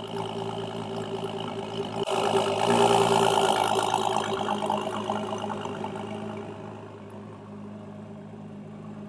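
2019 Ford GT's twin-turbo 3.5-litre V6 idling steadily. About two seconds in the sound swells louder and brighter, then fades back over the next few seconds.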